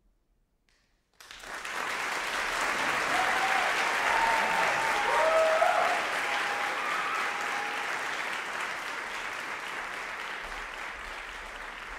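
A recital audience bursting into applause about a second in, after a brief silence, with a voice or two calling out near the middle; the clapping slowly tails off.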